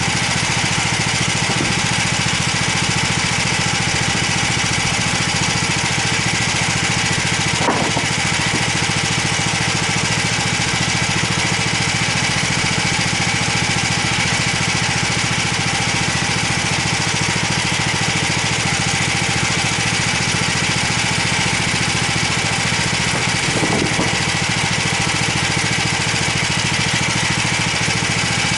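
Small gasoline engine of a homemade band sawmill running steadily at an even speed, with a couple of brief knocks partway through.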